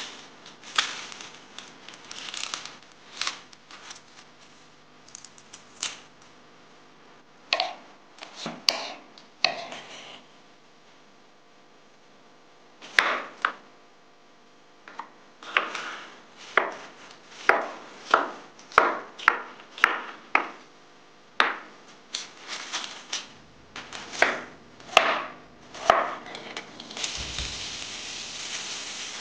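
Knife chopping food on a wooden cutting board in short, uneven strokes, sparse at first and then a quicker run of about two chops a second in the middle. Near the end a steady hiss sets in.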